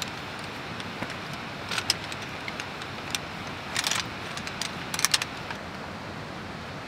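Metal legs of a Coleman folding camp chair clicking and clattering as the chair is pulled from its bag and its leg frame unfolded, in three short bursts over a steady background hiss.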